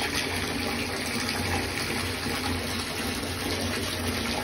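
Bath tap running, water pouring steadily into a filling bathtub.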